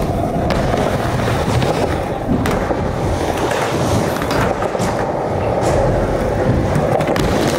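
Skateboard rolling: a steady rumble of the wheels on the ground, with a few short sharp clicks of the board along the way.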